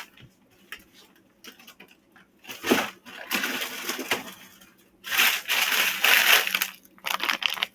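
Plastic food packaging crinkling and rustling as it is handled, in several loud bursts over the last few seconds.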